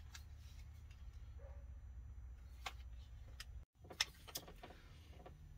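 Faint handling noise from a scoped AR-15 rifle being turned in the hands: a few scattered light clicks and taps over a low steady hum. The sound cuts out for an instant just before the loudest click.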